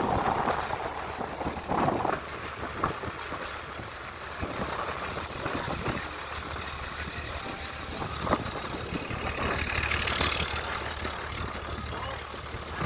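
Motorboat engine running steadily, with water rushing along the hull and a few brief louder noises near the start and about two seconds in.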